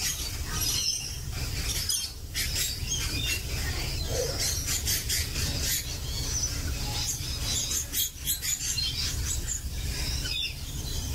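Wild parrots chattering and screeching in high, busy calls, over a steady low rumble, with a few small clicks of handling.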